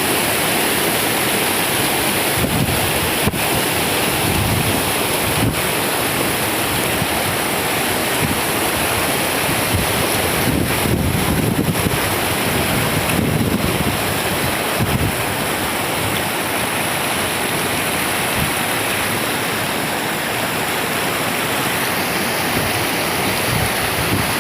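Loud steady rush of floodwater, with wind buffeting the microphone in gusts and a few brief clicks.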